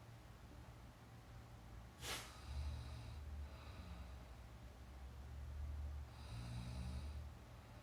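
A sleeping person snoring. A short sharp sound comes about two seconds in, then low, drawn-out snoring breaths for about five seconds.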